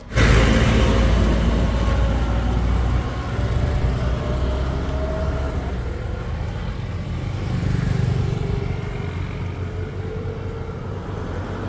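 A motor vehicle's engine running with a heavy low rumble, cutting in suddenly at the start.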